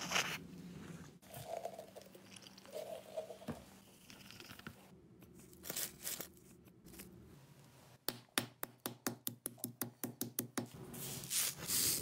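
Small handling noises and crinkling, then a quick even run of about twenty sharp scraping strokes, roughly eight a second, as a hexamine (urotropine) dry-fuel tablet is scraped down to white powder.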